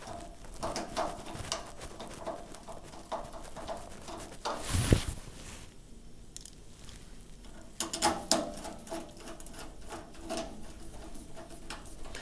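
Small metallic clicks and rattles of screws and a steel location bracket being handled and fitted to the back of a range cooker, with a louder knock about five seconds in.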